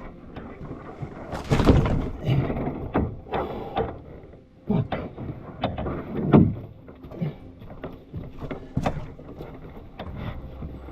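Knocks and splashy water sounds from a canoe on the water: a series of irregular thuds, the loudest near two seconds and six seconds in.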